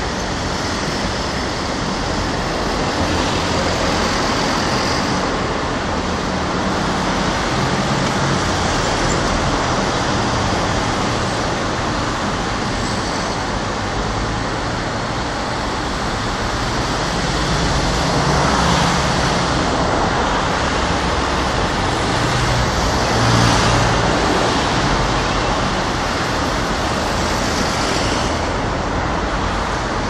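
Steady road traffic: cars, vans and trucks passing on a busy multi-lane city road, with the noise swelling now and then as single vehicles go by close, most strongly a little past the middle and again about three-quarters through.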